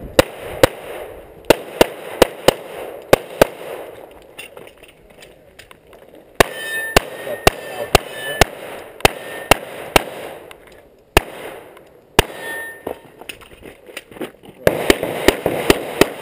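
Handgun shots fired in quick strings of about two to three a second, roughly two dozen in all, with a gap of several seconds partway through while the shooter moves between shooting ports.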